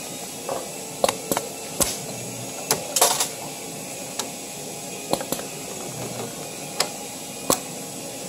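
MEC FL-8 spring-forming machine running as it makes small double torsion springs from fine wire. Sharp mechanical clicks come at uneven intervals, about one or two a second, over a steady hiss.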